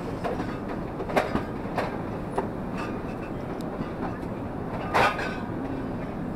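Steady rumble and hiss of an Airbus A380's economy cabin, with a few short knocks and clatters, the loudest about five seconds in.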